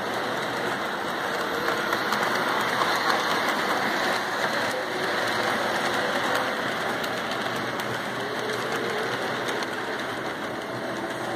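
Mantua 2-8-2 model steam locomotive and its string of hopper cars running past on the track: a steady, close rattle of small metal wheels on the rails with fine rapid clicking, a little louder about two to four seconds in.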